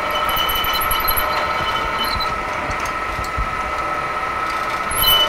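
Milling machine drilling through a stainless steel hammer head with a large twist drill: the spindle runs steadily under a constant high cutting whine, with chips ticking now and then.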